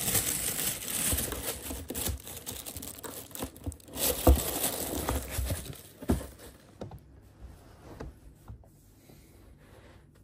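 Tissue paper rustling and crinkling as it is pulled about in a shoebox, with a single dull knock about four seconds in. The rustling thins out after about six seconds into a few light handling sounds.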